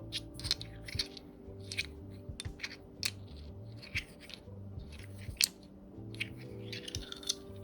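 Irregular sharp clicks and crackly rustling as a mechanical keyboard and its packaging are handled, over background music.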